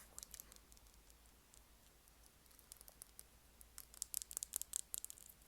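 Close-miked ASMR clicking: a few scattered crisp clicks, then a quick dense run of them about four to five seconds in.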